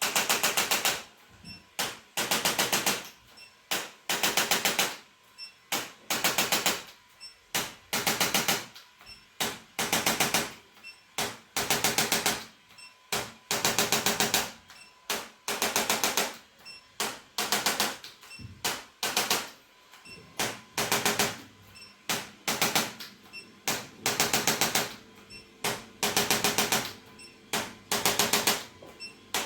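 Rapid mechanical clattering in short bursts of about half a second to a second, each burst a fast run of clicks, repeating about once every second or so.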